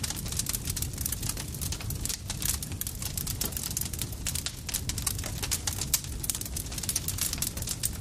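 Campfire crackling: a dense run of irregular snaps and pops over a steady low rumble of burning, with one sharper pop about six seconds in.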